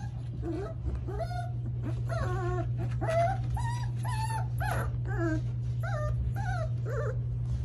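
Central Asian Shepherd puppies four weeks old whining and whimpering, a rapid string of short high calls that bend in pitch, two or three a second from about a second in. Beneath them runs a steady low hum.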